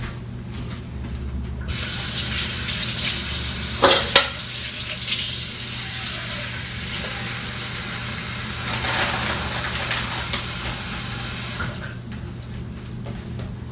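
Kitchen tap running for about ten seconds, water splashing into a container to be added to the pot, then shut off, over a steady low hum.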